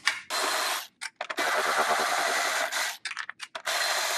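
Milwaukee M12 cordless electric ratchet running in several bursts, the longest about a second and a half, spinning out the 10 mm bolts that hold a turbo heat shield.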